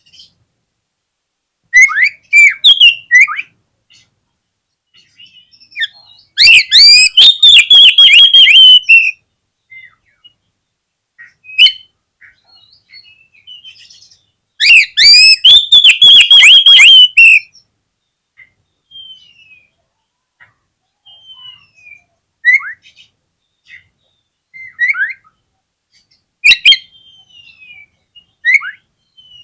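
Oriental magpie-robin (kacer) singing: short whistled phrases, with two long, loud bursts of rapid repeated notes about six and fifteen seconds in, and softer scattered whistles between. It is a male's territorial song, used here as a lure to provoke other magpie-robins to sing.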